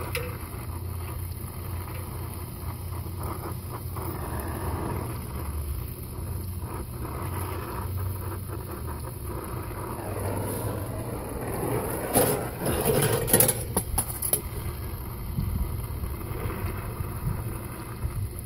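Brazing torch flame hissing steadily as a copper refrigerant line is brazed onto a replacement compressor, with a few knocks about two-thirds of the way in.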